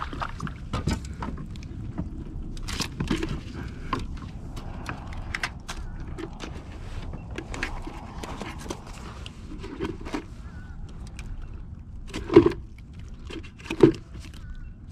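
Scattered clicks and knocks of a just-landed sheepshead and fishing tackle being handled in a plastic kayak, with two louder thumps near the end.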